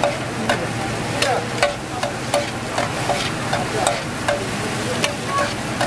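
Metal spatula and tongs clinking and scraping on a flat griddle as chicken and vegetables are tossed and stir-fried, with repeated sharp clinks over a steady sizzle of frying.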